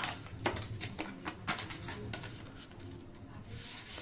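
Light taps and clicks of paper and craft tools being handled on a work table: a few sharp ones in the first half, then fainter rustling.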